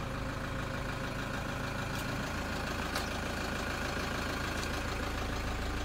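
A 2013 Toyota Hilux Workmate's four-cylinder turbo diesel idling steadily, heard from inside the cab.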